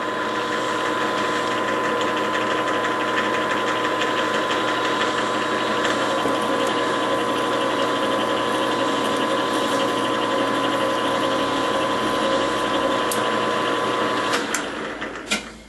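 Grizzly G4000 metal lathe running under power with the half nuts engaged, feeding the carriage for a thread-cutting pass: a steady gear whine with a few fixed tones. It shuts off near the end, followed by a couple of sharp clicks from the controls.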